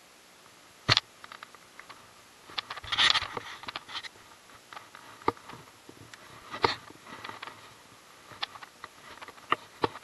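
Scattered clicks and short scrapes from handling a baitcasting rod and reel close to the microphone, with a sharp click about a second in, a longer rustly scrape around three seconds and another sharp click a little before seven seconds.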